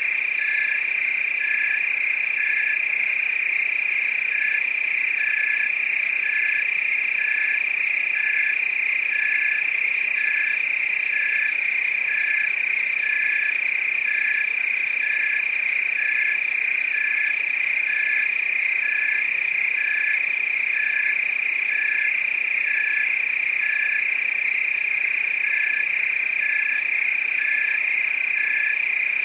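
Night chorus of frogs and crickets: a continuous high-pitched insect trill with a regular pulsing call repeating about once a second.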